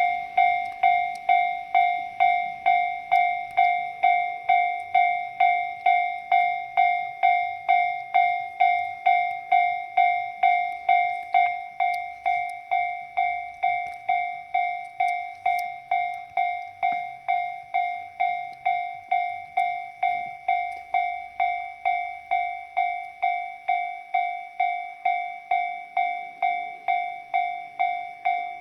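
Railroad level-crossing warning bell ringing steadily, about two clanging strikes a second, each dying away before the next: the signal that a train is approaching.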